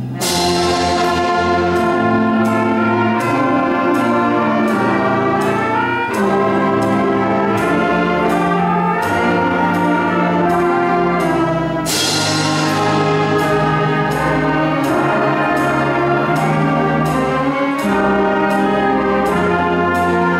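School concert band of 8th-grade brass, woodwind and percussion players performing at full volume over a steady beat. A loud accented chord with a crash opens the passage, and another crash comes about twelve seconds in.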